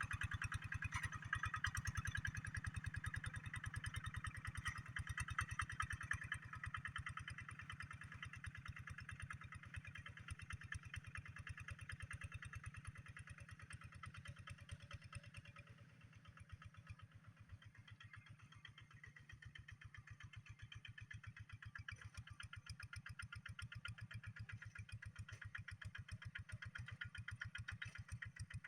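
A rice-field tractor's D12s diesel engine running steadily with evenly spaced firing pulses. It grows quieter toward the middle and louder again near the end.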